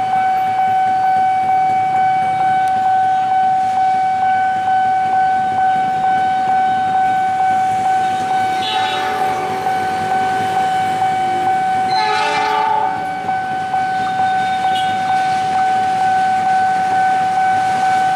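Level-crossing warning alarm sounding steadily, one high ringing tone that pulses about two and a half times a second. A KAI CC206 diesel locomotive's horn sounds briefly about twelve seconds in, with a fainter horn call about nine seconds in.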